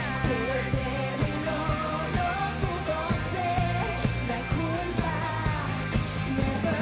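Live pop-rock band playing, with a singing voice carrying a wavering melody over drums and a steady beat.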